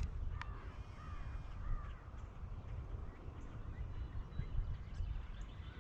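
Crows cawing faintly a few times in the first couple of seconds, over a low rumble of wind on the microphone.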